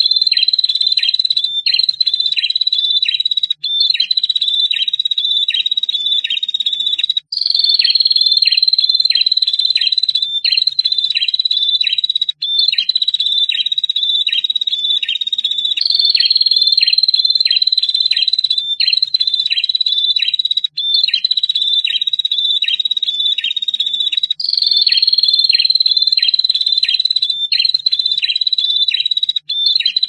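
Prinia (prenjak) singing a long, high, trilling 'ngetir' song in phrases of two to four seconds with brief breaks, a regular ticking beat of about three notes a second running through each phrase.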